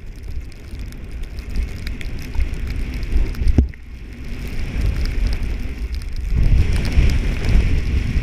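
Wind buffeting the microphone of a camera carried by a rider going downhill, with the rushing hiss of sliding through fresh snow. A sharp knock comes a little past halfway, followed by a moment's lull, and the rushing grows louder about six seconds in.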